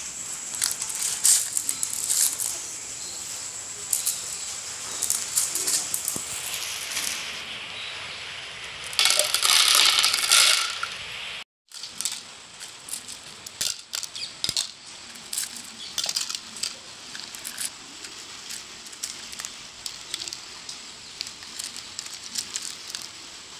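Coloured aquarium pebbles dropped by hand into a glass tank of water, clicking against the glass and against each other. A louder, denser clatter near the middle lasts about two seconds and cuts off suddenly.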